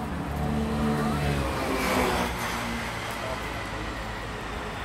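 A road vehicle driving past: a low engine hum, then tyre and engine noise swelling to a peak about two seconds in and fading away, over general street noise.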